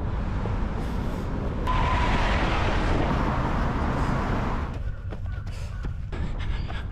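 Road traffic passing: a vehicle's rush swells for about three seconds from near two seconds in, over a steady low rumble of wind on the microphone. After it, the sound is thinner with scattered light ticks.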